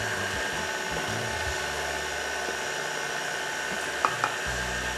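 KitchenAid Artisan stand mixer running steadily at low speed with a thin whine, its beater turning through cake batter in a stainless-steel bowl. Two light clicks about four seconds in.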